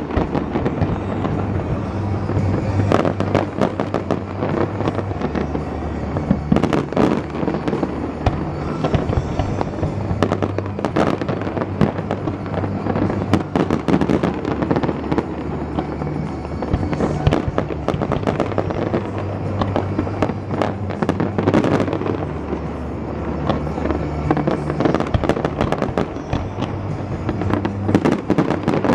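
Fireworks display: a dense, continuous barrage of bangs and crackling bursts over a music soundtrack with steady bass notes.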